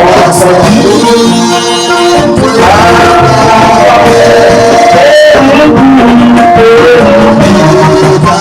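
Music with a voice singing a melody over instruments, loud and continuous.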